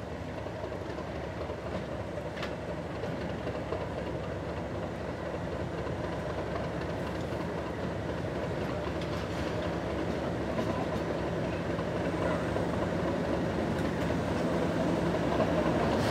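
Class 37 diesel-electric locomotive's English Electric V12 engine running as the locomotive rolls slowly toward the listener, growing steadily louder as it draws near.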